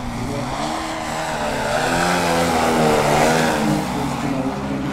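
The Desert Aircraft DA-200 two-stroke petrol engine of a large-scale CARF Extra 330 SC model aerobatic plane, running under changing throttle, its pitch bending up and down. It grows louder to a peak about three seconds in, then eases off.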